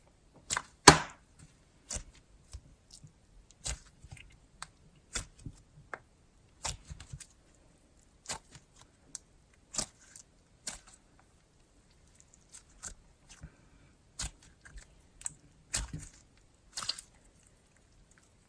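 Slime being squeezed, folded and poked by hand, giving off irregular sharp clicks and small pops, several a second.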